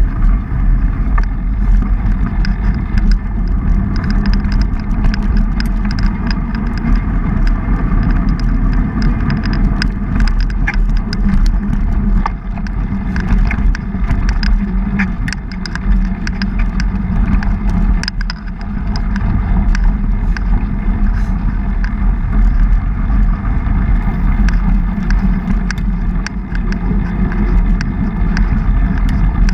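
Mountain bike riding over a dirt trail: steady tyre rumble and wind on the GoPro 3's microphone, with frequent light clicks and rattles from the bike.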